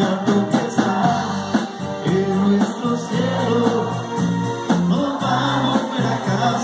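Live band playing a ballad, with electric bass, drums and keyboards under a lead singer's voice.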